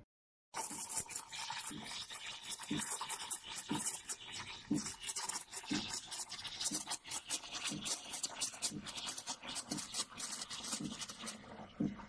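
Espresso machine steam wand frothing milk in a stainless steel pitcher, starting about half a second in: a steady hiss with rapid crackling sputter as air is drawn into the milk, and a soft low pulse about once a second.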